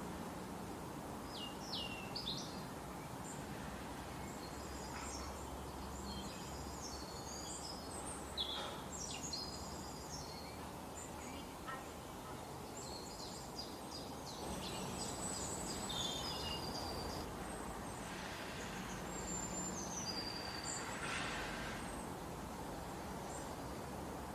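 Forest ambience: several small birds chirping and singing in short scattered phrases over a steady background hiss.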